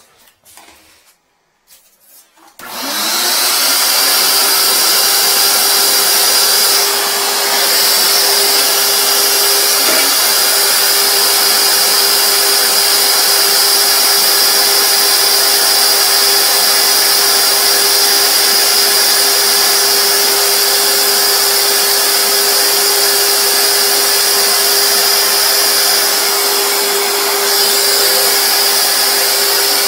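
Wet/dry canister vacuum switched on about two and a half seconds in and running steadily with a high whine, its hose held in a clogged toilet bowl sucking out water and waste. The loudness dips briefly twice, about seven seconds in and near the end.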